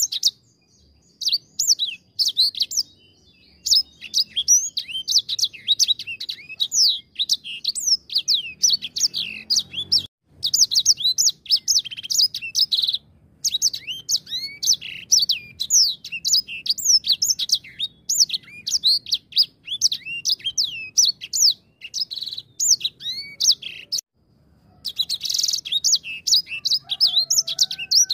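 Grey singing finch (edel sanger) singing a long, rapid, chattering song of high chirps and quick rising and falling whistles, broken by a few short pauses.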